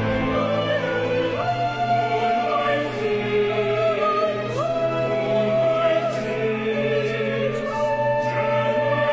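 Music: choral or operatic singing with long held notes that slide from pitch to pitch, over a sustained low accompaniment.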